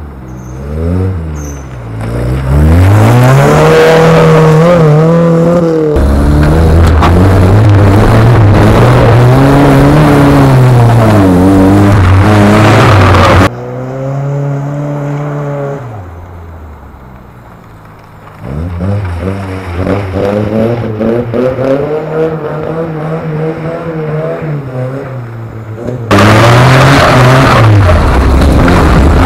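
Suzuki Vitara off-road buggy's engine revved hard, its pitch sweeping up and down over and over as it is driven flat out. It drops back to a fainter, steadier note for a few seconds partway through, then comes back loud near the end.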